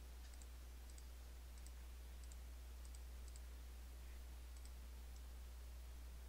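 Computer mouse button clicking faintly, about eight press-and-release clicks spaced irregularly about a second apart, stopping a little past five seconds in. A steady low hum runs underneath.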